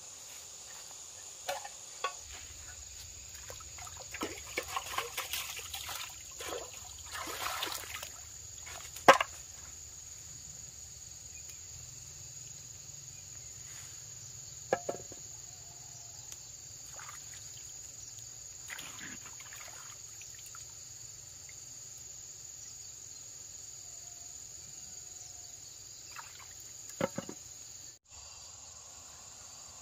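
Insects chirring steadily in one high, unbroken tone, over splashing and dipping in shallow stream water and a few knocks of a metal pot; the loudest is a sharp knock about nine seconds in.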